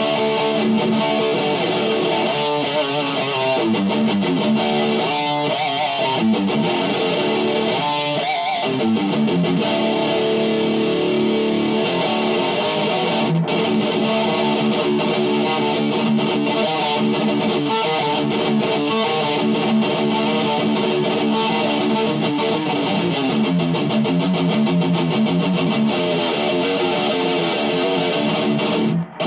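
Distorted electric guitar, a black Les Paul-style solid-body, playing fast extreme-metal riffs with changing notes throughout; the playing stops for a moment near the end before carrying on.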